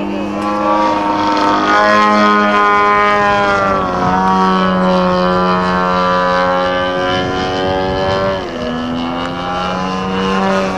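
Engine and propeller of a radio-controlled aerobatic model airplane flying overhead, running loud and steady, its pitch rising and falling as it climbs and dives. The pitch drops sharply about four seconds in and again near the end.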